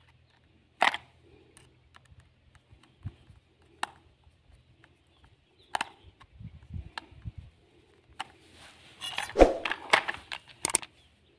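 Screwdriver and hands working a plastic RC toy car's battery-cover screw: scattered sharp plastic clicks and light scraping, with a denser run of louder clicks and knocks near the end as the plastic remote control is handled and opened.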